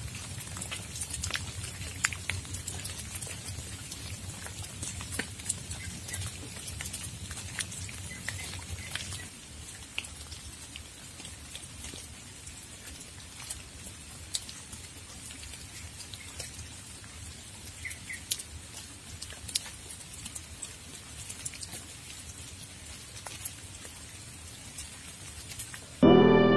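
Rain falling, with scattered sharp drips ticking irregularly over a low rumble that eases off about a third of the way through.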